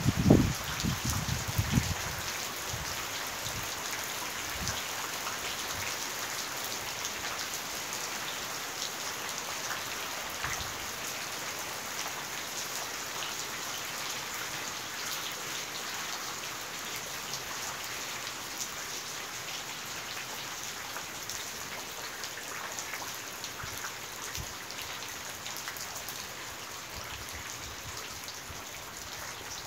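Steady rain falling on the ground and roofs, a dense patter of drops. A few low thumps come in the first two seconds.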